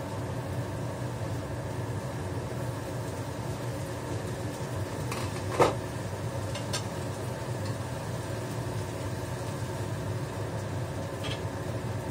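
Kitchen range hood fan running with a steady hum. About halfway through comes a single ringing metal clank, with a few lighter clicks, as the wok lid and utensils are handled.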